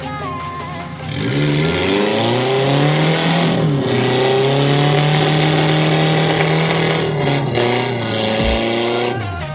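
Suzuki Jimny Katana's engine revving hard under load as it climbs a rocky off-road trail. The revs climb about a second in, dip briefly and pick up again near four seconds, hold high, then fall away near the end.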